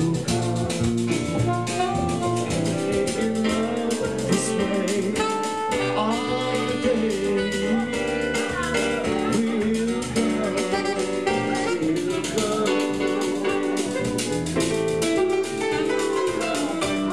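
Instrumental jazz-style music with a steady beat and a moving melody.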